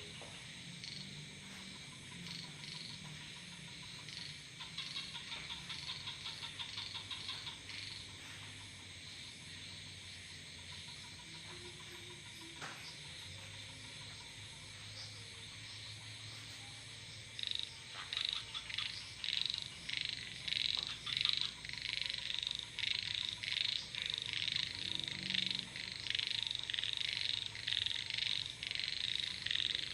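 Frogs calling in rapid rattling pulses: one short bout, then from a little past halfway a denser run of repeated calls, louder. A steady high trill of crickets runs underneath.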